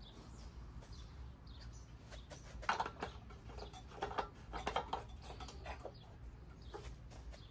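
Primer bulb on a Briggs & Stratton 4.5 hp small engine pressed several times in a row, a run of short squeaky puffs, priming the carburettor for a start.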